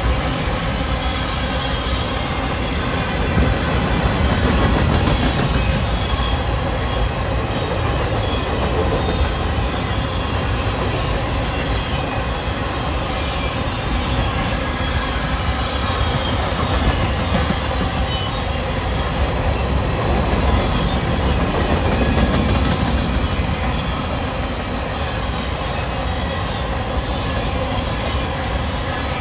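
Freight train of covered hopper cars rolling past: a steady rumble and clatter of steel wheels on the rails, unbroken throughout.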